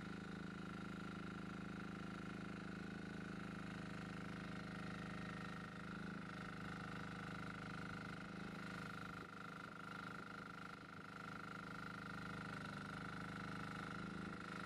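Jansen MB-2000 mini excavator running steadily, with a low engine drone and a high whine that grows louder in the second half as the boom swings side to side.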